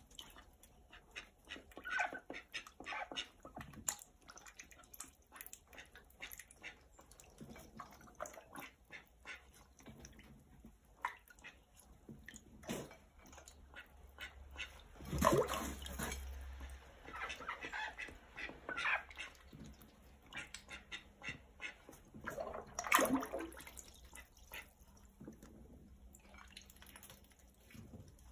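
Grey call ducks calling in a small tub of water, a few loud quacks standing out about halfway through and again a little later, over soft ticking and splashing as their bills dabble at the water.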